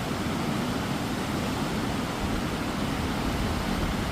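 Steady rush of flowing water from a spring-fed stream or falls, an even hiss with no breaks.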